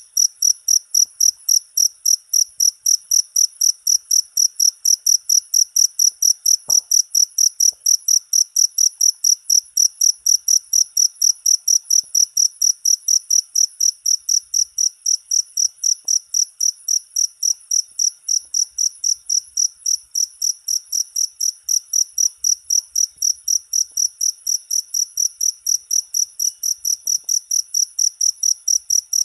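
Cricket chirping steadily and without pause, about three high-pitched chirps a second.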